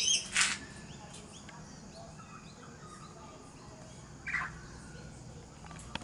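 Princess parrots calling: a loud harsh call right at the start and a shorter one about four seconds in, with faint chirps between.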